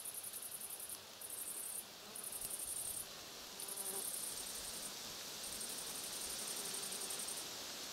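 Insects stridulating: very high, fast trills repeated in phrases of about one to two seconds with short pauses between them.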